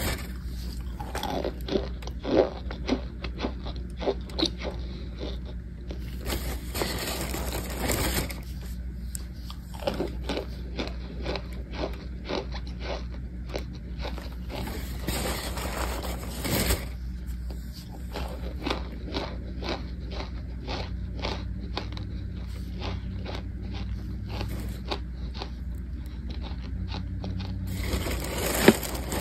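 Chunks of cornstarch and tapioca starch crunching and crumbling in many sharp, irregular crackles as a gloved hand squeezes and breaks them on aluminium foil, with a few stretches of the foil crinkling.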